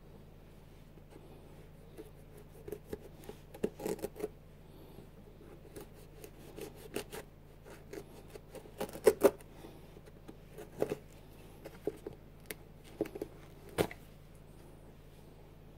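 Hands handling and flexing a Nike Air Max 90 sneaker: scattered short rubs and clicks on the shoe, the loudest a close pair of clicks about nine seconds in.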